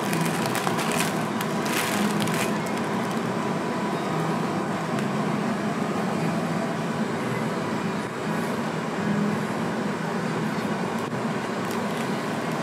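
Steady background hum and hiss of room noise, with a few brief crackling rustles in the first couple of seconds.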